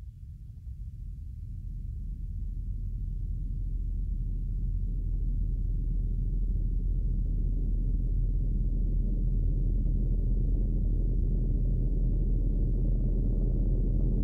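Deep rumble of Nyiragongo volcano that fades in and swells over the first few seconds, then holds steady over a constant low hum.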